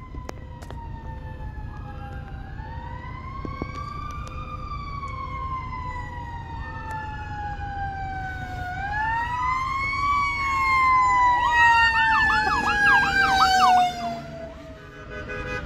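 Emergency vehicle sirens approaching and passing: a slow wail rising and falling in pitch, joined by a fast yelp from about eleven seconds in, over a low steady traffic rumble. The sirens fade near the end.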